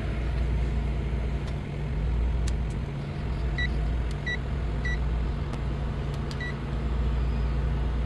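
Commercial refrigerator's compressor and condenser fan running with a steady low hum: the unit cooling normally under the control's call. Four short, high beeps from a handheld clamp meter come about midway.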